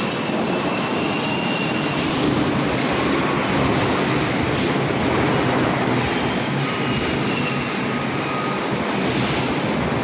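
Automatic 3D panel wire mesh welding machine running: a loud, steady, dense mechanical rattle, with a few faint thin squeals here and there.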